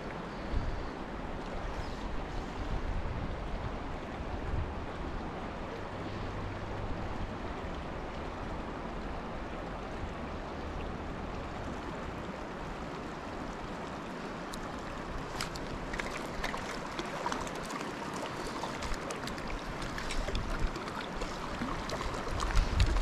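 Steady rush of the Big Thompson River's current, with low gusts of wind on the microphone at times. In the last several seconds, small splashes and ticks at the water's surface.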